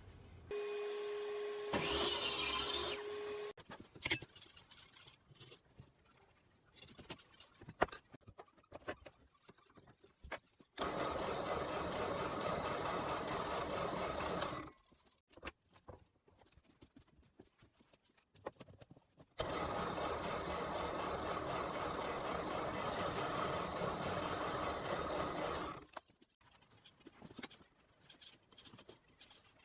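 A power tool running in two steady spells of about four and six seconds, working a piece of scrap wood, with scattered knocks and clicks of handling in between. Near the start a shorter steady hum with a rising whine.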